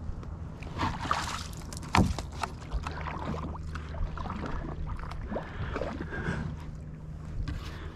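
Canoe paddle strokes: the blade dipping and pulling through the water in irregular swishes and splashes, with one sharp knock about two seconds in, the loudest sound.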